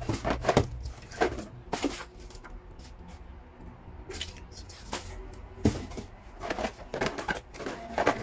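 Cardboard box and paper packaging being handled: a string of short knocks, scrapes and rustles as items are lifted out of a shipping carton, most frequent near the end.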